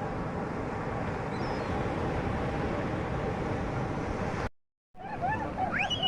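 Steady rumble of a boat ride on the sea, engine and water noise together, which cuts off abruptly about four and a half seconds in. After a short gap, a bird gives a series of honking calls that rise in pitch.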